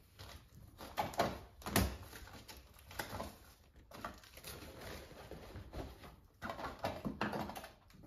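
Rustling and light clicking knocks of small items being handled and packed into a waterproof backpack. The clicks are irregular, with the loudest knock about two seconds in.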